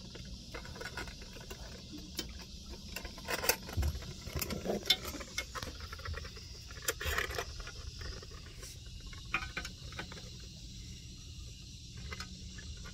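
Scattered clinks, knocks and rattles of fishing gear (landing net, scale and rods) being handled on a boat deck, over a steady low hum.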